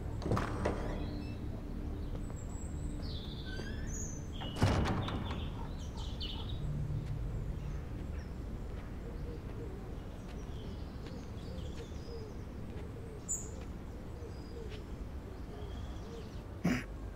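Quiet outdoor ambience of birds chirping here and there over a steady low rumble, with one sharp knock about four and a half seconds in and a smaller one near the end.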